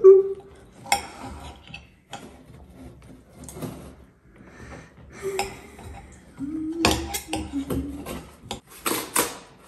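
A parcel being unpacked by hand: cardboard and packaging rubbing, scraping and rustling in short, irregular bursts, busiest near the end.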